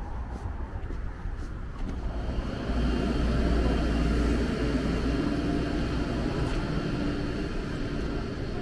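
Steady low hum and whir of a building's ventilation blower, with a faint high whine above it. It swells about two seconds in and eases off a little after about five seconds.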